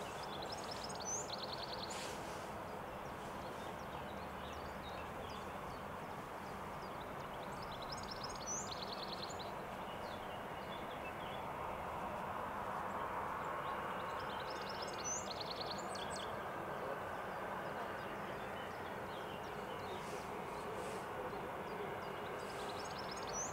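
Distant Boeing 767-300 jet engines making a steady broad hum as the airliner rolls on the runway. A songbird sings a short high trilled phrase four times, about every seven seconds.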